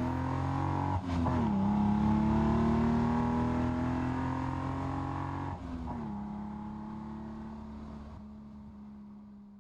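A vehicle engine accelerating away through the gears: its pitch drops at two gear changes, about a second in and again near the middle, and climbs slowly after each, while the sound fades into the distance.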